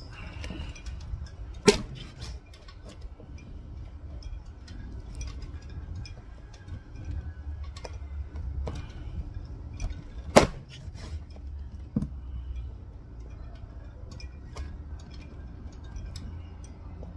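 Meat cleaver chopping a duck on a wooden board: three sharp chops, about two seconds in, near ten seconds (the loudest) and at twelve seconds, with small clicks and taps of the blade between.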